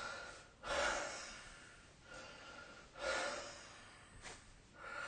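A sleeping person snoring in about three breath cycles. Each cycle is a hissing draw of air carrying a faint whistle, then a louder rush of air. A short click comes about four seconds in.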